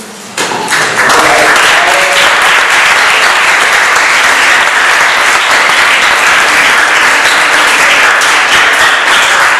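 An audience applauding: the clapping starts about half a second in, fills out within a second and holds steady.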